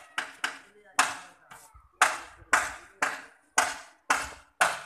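Hammer striking masonry on a building site: a steady series of sharp blows, about two a second, each with a short ringing tail.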